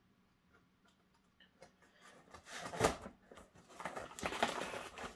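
Hands working to open a taped cardboard parcel: a few light clicks, then a sharp rasp of packing tape and cardboard being scraped and torn about two and a half seconds in, and a longer stretch of tearing and scraping in the last second and a half.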